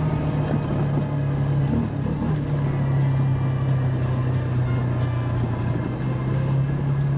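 ATV engine running at a steady speed, its note dropping a little about two seconds in.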